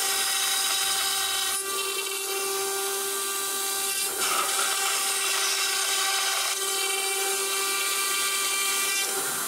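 CNC router spindle whining steadily as its end mill cuts a profile through a foam sign blank, the sound shifting slightly about every two and a half seconds as the cut moves along.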